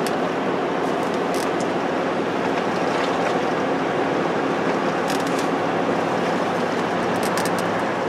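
Steady road and engine noise in the cab of a moving pickup truck, with a low hum under an even rush of tyre and wind noise.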